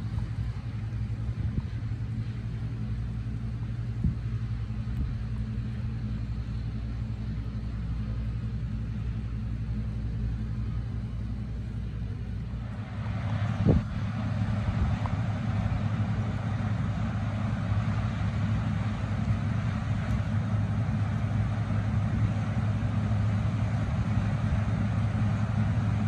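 John Deere 9760 combine running, a steady low engine drone. About halfway through the sound changes abruptly to a louder, fuller drone with more rushing noise as the combine harvests corn, with one sharp knock just after the change.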